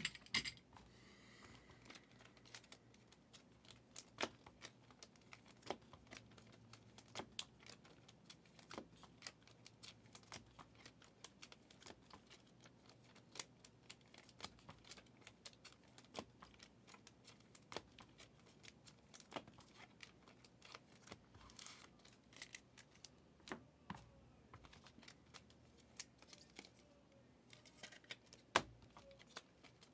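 Trading cards being handled and flipped through: a steady scatter of small clicks, taps and flicks of card stock, with a sharper snap near the end.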